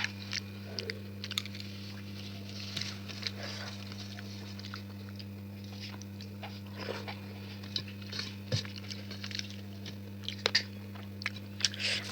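A person chewing and biting food close to the microphone, with irregular crunches and clicks, over a steady low hum.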